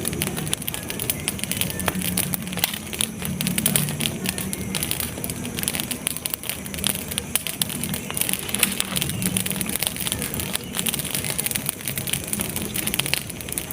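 Campfire crackling, with a dense run of irregular snaps and pops over a low hum.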